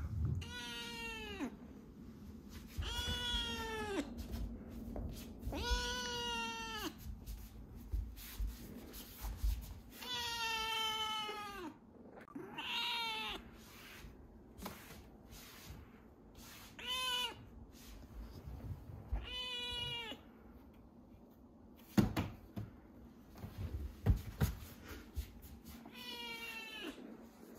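Young tabby kitten meowing again and again: about eight drawn-out meows, each dropping in pitch at the end, with pauses between them. A few sharp knocks sound in the later part, between the meows.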